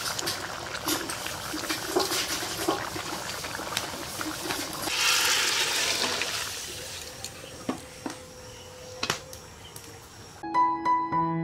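Curry of small fish and potatoes cooking in a metal wok, bubbling in its gravy, with scattered clicks from stirring and a louder stretch of sizzling and stirring about five seconds in. Piano music comes in near the end.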